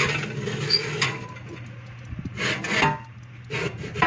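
Ceramic baking dishes scraping across a metal wire oven rack as they are pushed into the oven. There is one long scrape in the first second, then shorter scrapes about two and a half and three and a half seconds in.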